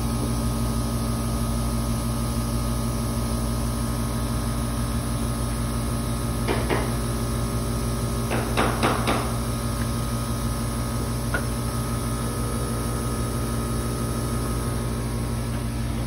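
Steady electrical and mechanical hum of a running R-410A air-conditioning system's compressor, which is running on high head pressure from a dirty coil. A few short knocks come near the middle.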